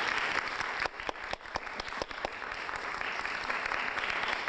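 Audience applauding, the clapping thinning for a moment about a second in, where a few separate sharp claps stand out, then filling out again.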